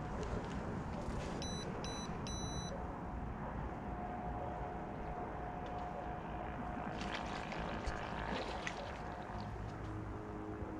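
Steady low rumble of wind on the microphone, with three short, high electronic beeps about a second and a half in.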